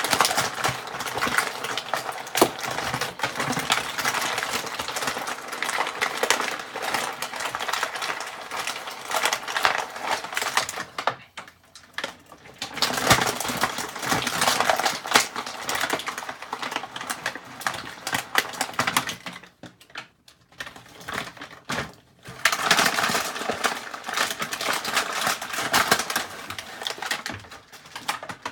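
Plastic toy packaging being handled and opened: rapid, dense crinkling and clicking of plastic, in three long spells with two short pauses between.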